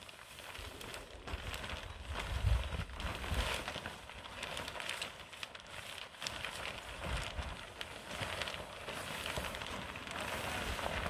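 A large sheet of clear polyethylene greenhouse film rustling and crackling as it is pulled over the hoops and billows in the wind. Gusts of wind buffet the microphone, hardest about two and a half seconds in.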